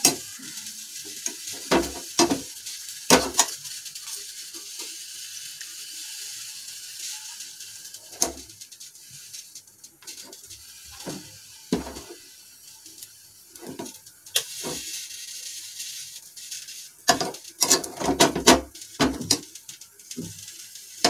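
Gas stove burner flame hissing steadily while a naan is toasted over it, with a metal utensil clinking and knocking against the burner and its grate now and then, and a quick run of clatters near the end.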